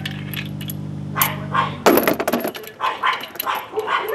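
Loosened steel lug nuts clinking as they are spun off a dual rear wheel by hand, with a loud metallic clatter a little under two seconds in. A steady hum cuts off just before the clatter, and a dog barks on and off.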